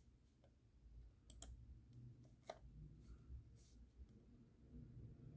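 A few faint clicks from a computer mouse while the web page is scrolled. A quick pair comes about a second and a half in, another a second later, and a softer one after that.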